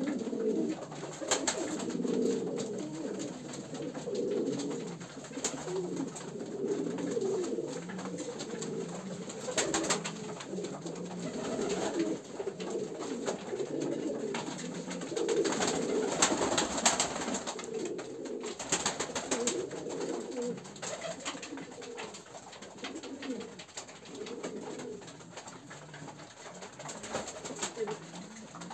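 Many stawak pigeons cooing at once in a small loft, an overlapping, continuous low warble, with a few brief bursts of wing flapping.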